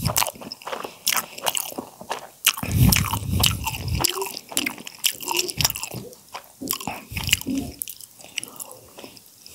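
Wet chewing and lip smacking of a mouthful of noodles, with many short mouth clicks and a longer, louder slurp about two and a half seconds in.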